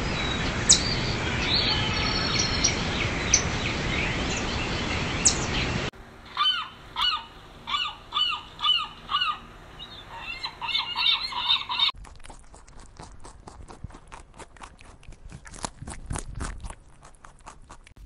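A steady rushing noise with a few short, sharp high squeaks. About six seconds in, gulls call over and over, roughly two calls a second. From about twelve seconds there is a quieter run of rapid clicks and taps.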